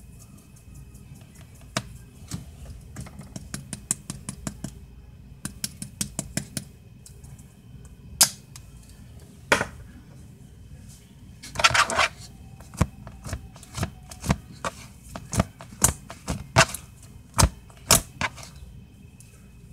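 Homemade glitter slime being squeezed and stretched by hand, making crunchy, irregular clicks and sharp pops, several a second, with one longer crackle just past the middle.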